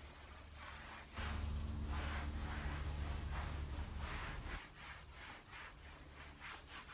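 Cerakote Trim Coat applicator wipe rubbed by a gloved hand along a plastic truck trim panel, a run of soft wiping strokes. A low hum comes in about a second in and drops away after about four and a half seconds.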